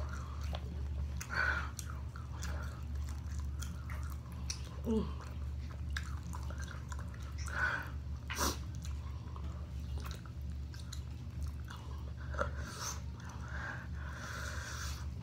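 A person chewing and biting fried chicken wings coated in sauce, with scattered short smacks and clicks of mouth and fingers, over a steady low hum.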